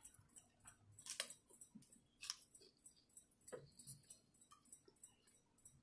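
Near silence with faint, irregular clicks and soft taps from eating and handling food at the table; a few stand out slightly, about a second in, past two seconds and past three and a half seconds.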